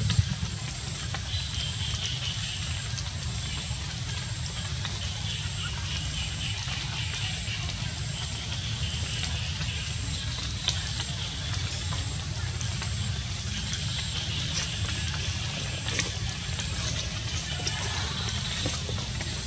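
Steady outdoor background noise: a low rumble under a thin, high steady hum, with a hiss that swells and fades, and a couple of faint clicks.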